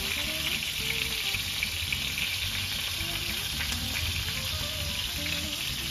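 Shell-on shrimp frying in olive oil in a pan: a steady sizzling hiss.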